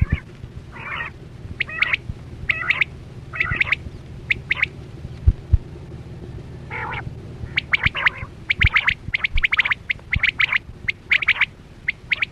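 Quail calling: clusters of short, sharp, rapidly repeated notes, coming thicker and faster in the second half, over a steady low hum.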